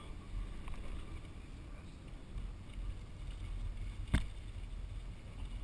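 Steady low road and engine rumble inside a moving vehicle's cabin, with one sharp knock about four seconds in.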